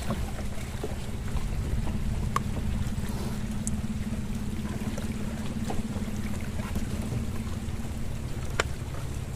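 A boat engine running at a steady low hum, with a few light knocks on top.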